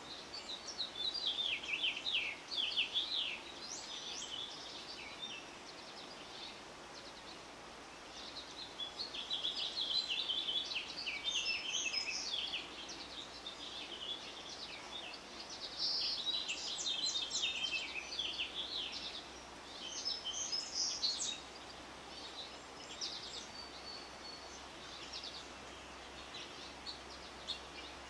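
Songbirds singing outdoors: several bouts of quick, high, falling chirping notes a few seconds apart, over a steady faint background hiss.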